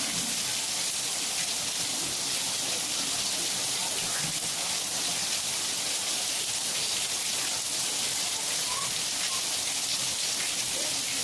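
Heavy rain falling steadily, a dense even wash of drops.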